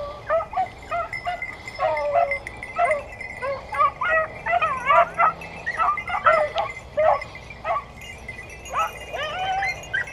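Beagle-type hunting hounds giving tongue: rapid, overlapping, high-pitched yelps and bays, the cry of hounds running a scent.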